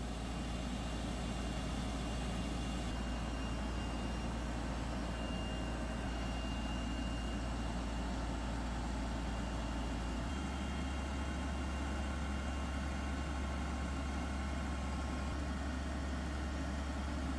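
Diesel engine of a Schramm 450WS truck-mounted drilling rig running steadily. Its low hum steps up slightly in pitch about ten seconds in, as the engine speed rises a little.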